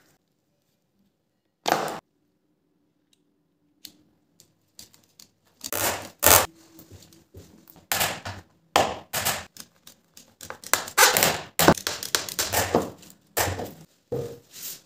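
Irregular clicks, knocks and rattles of hand-tool work: a plastic screwdriver-bit case being handled and a hand screwdriver driving screws into a wooden stool and board. Quiet for the first few seconds apart from one short clatter, then a dense run of sharp clicks and knocks.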